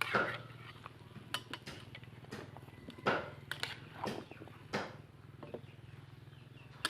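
Metal spatula knocking and scraping irregularly against a large cooking pot as taro is stir-fried, over a steady low hum.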